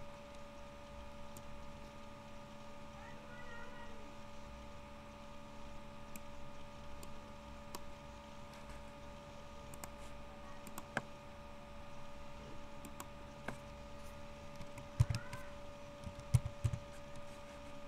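Steady low electrical hum with faint scattered clicks from a computer mouse and keyboard, and a few louder knocks near the end as a letter is typed.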